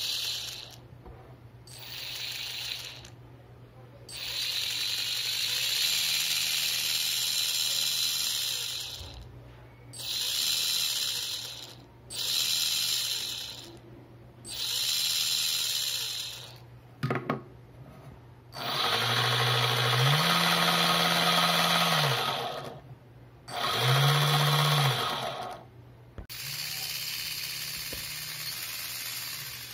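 2212 1400kv brushless outrunner motor driving a small homemade reduction gearbox with plastic gears, run in repeated bursts of one to four seconds: a high-pitched whine and gear noise as the motor spins up, then stops. In a couple of the later runs the motor's pitch steps up as the throttle is raised.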